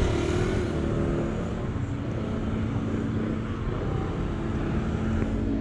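City street traffic: car and motor scooter engines running and passing close by, a steady low rumble with an engine hum.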